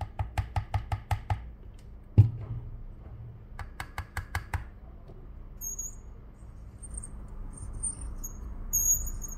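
Two quick runs of light, evenly spaced clicks, about seven a second, with a single sharp knock between them, as the screen-separating clamp and tools are worked on the phone; faint short high squeaks follow in the second half.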